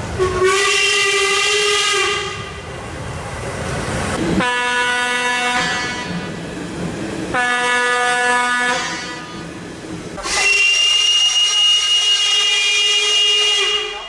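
Steam whistle of the ČSD class 464.2 steam locomotive 464.202 sounding four blasts as it departs: two longer ones at the start and end, two shorter ones in between. A rush of steam hissing goes with the first blast and carries on for a couple of seconds after it.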